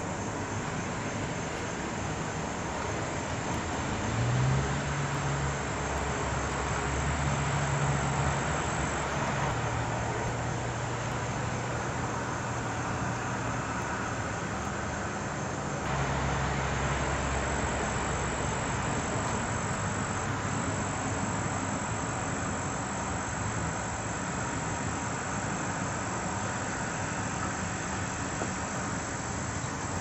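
Steady outdoor background noise with a low engine hum that comes in about four seconds in, shifts pitch a few times and drops away around sixteen seconds in.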